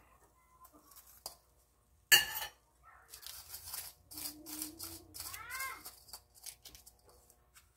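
Crisp fried rosette buñuelo being pressed and turned by hand in sugar in a ceramic bowl: a sharp knock about two seconds in, the loudest sound, then a few seconds of crackling and rustling.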